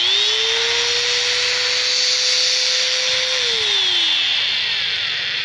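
Electric grinder switched on, spinning up to a steady whine and running smoothly on its newly replaced gear and bearings, then switched off about three and a half seconds in and winding down with falling pitch.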